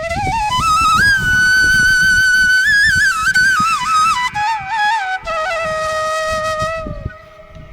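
Background music: a solo flute melody with wavering, ornamented notes that climbs at the start, holds high, then steps down and fades near the end, over a low rumbling noise.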